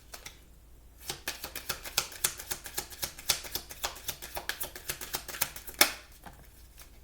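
A deck of oracle cards being shuffled by hand: a quick run of card clicks and flicks, with one louder snap near the end.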